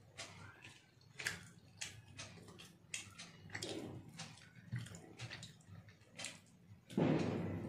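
Close mouth sounds of a person eating rice by hand: wet chewing and lip-smacking, with fingers squishing and mixing food on a glass plate. A louder, longer sound about seven seconds in fades slowly.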